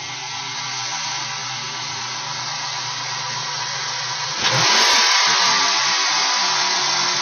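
2002 Ford Mustang's 3.8-litre V6 idling steadily with a loud hiss over it; the engine has a vacuum leak after a Windstar intake swap. About four and a half seconds in, the hiss suddenly gets louder.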